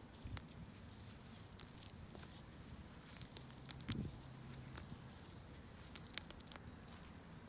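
Faint crackles and scattered small clicks of a gloved hand pulling weeds from damp clay soil among pine-bark mulch, with a soft knock about four seconds in.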